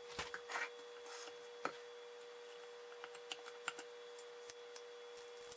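Faint clicks and light knocks of a KitchenAid Classic tilt-head stand mixer being handled: its head tilted up and its stainless steel bowl taken off the base. The knocks are scattered, most of them in the first two seconds, over a faint steady hum.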